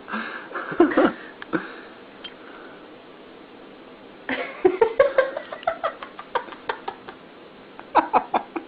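A cat's short rising meow about four and a half seconds in, with scattered clicks and knocks around it.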